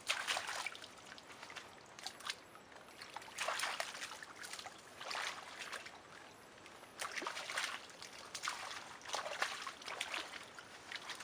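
Hands sloshing and splashing through shallow muddy water, groping along the bottom for crabs, in irregular bursts every second or two.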